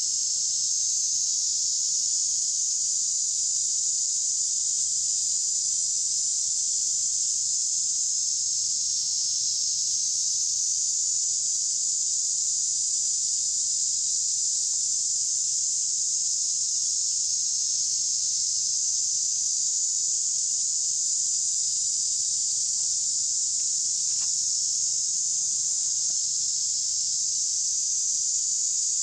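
A chorus of insects droning, steady and high-pitched, with no breaks or changes in level.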